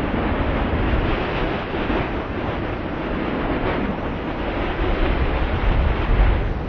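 Wind blowing steadily, with low rumbling gusts buffeting the microphone; the strongest gust comes about six seconds in.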